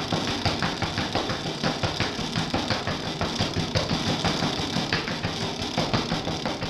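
Throbbing electronic noise music: a dense, harsh din pulsing rapidly with drum-like hits.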